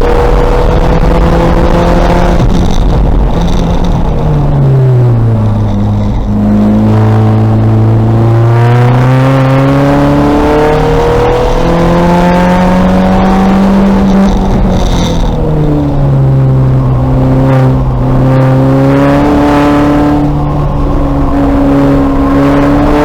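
2000 VW Golf race car's engine at race pace, the pitch climbing as it accelerates and falling away several times as it lifts and brakes, over loud road and wind noise.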